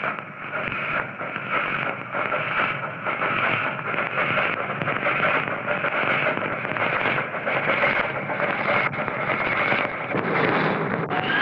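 Miniature live-steam locomotive running, its exhaust chuffing in a steady, even rhythm.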